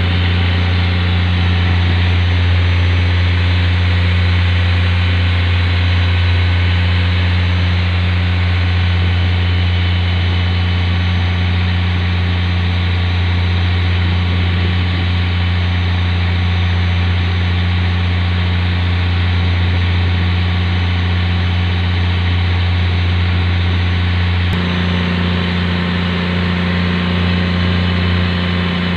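Fishing boat engine running steadily: a deep, constant hum with a wash of noise over it. A click comes about three-quarters of the way through, after which the tone of the hum shifts slightly.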